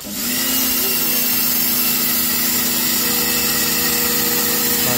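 Total TGT11356 1800 W electric pressure washer running under load as its gun fires a high-pressure water jet onto stone tile: a steady motor hum under the loud hiss of the spray, kicking in as the trigger is pulled.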